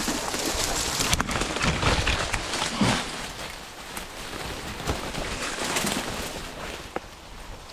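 Dry twigs, branches and leaves scraping and crackling against a person pushing through thick brush by hand, with footsteps crunching in dry leaf litter. It is loudest over the first three seconds and eases off after that.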